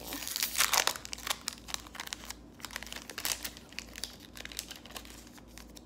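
Foil wrapper of a trading card pack crinkling and tearing as it is pulled open by hand. The crackling is densest in the first second, then goes on in sparser crinkles.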